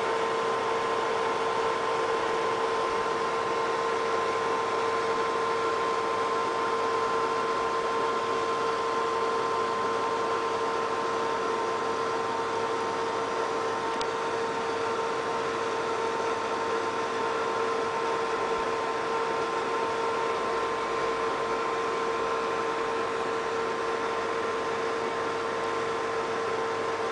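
Desktop PC's cooling fans running steadily: a constant whirring hiss with a steady hum tone in it.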